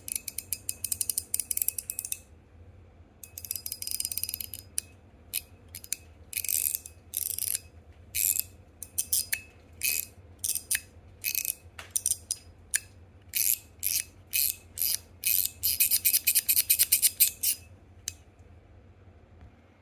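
GAO Studio Ma Ya Tan fidget slider, one half stainless steel and one half PEI, being slid back and forth, giving sharp clicks. The clicks come in fast runs at the start, a few seconds in, and again near the end, with single clicks spaced out in between.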